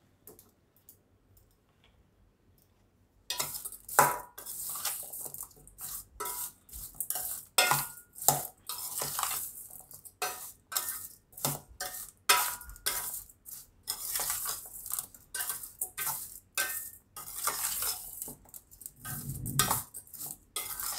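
Metal spoon stirring chopped raw mango salad in a stainless steel bowl: repeated scraping and clinking strokes against the bowl's side, starting about three seconds in.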